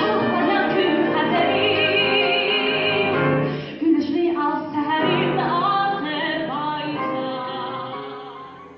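A woman singing in a classical, operatic style with vibrato into a microphone, with piano accompaniment; the music fades out near the end.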